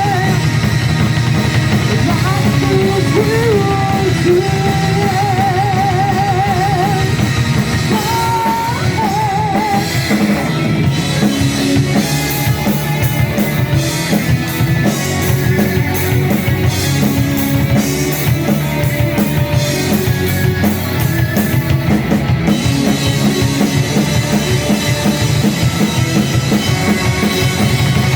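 Rock/metal band playing live through a PA, with distorted guitar, bass and a drum kit. A long held note with vibrato rides over the first ten seconds or so. After that the drums drive on with fast, even strokes and crashing cymbals.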